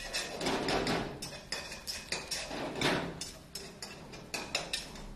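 Metal wok spatula clanking and scraping against a wok while stir-frying, an irregular run of sharp knocks a few times a second with two longer scrapes.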